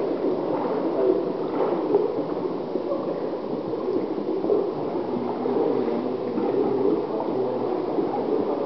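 Water gurgling and churning steadily in a pool, with the kayak moving through it.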